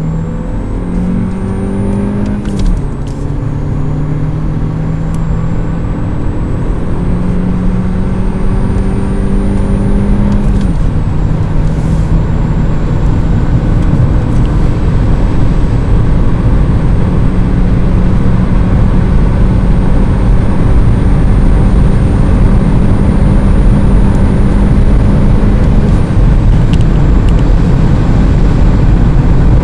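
Audi A3 8V's 1.4 TFSI turbocharged four-cylinder, heard inside the cabin, accelerating hard through the gears of its manual gearbox. The engine note climbs slowly in each gear and drops at three upshifts: early on, about a third of the way in, and near the end. Wind and road noise grow louder as speed builds.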